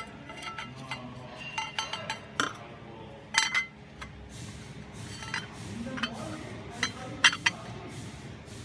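Metal hand tools and parts clinking and tapping against each other in a series of light, irregular strikes with a brief ring, the loudest a little past three seconds in and again about seven seconds in.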